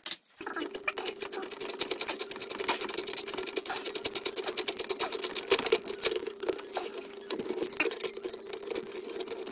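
A small power driver's motor running steadily with rapid clicking, turning a socket on an extension bar onto a bolt in the washing machine's front frame.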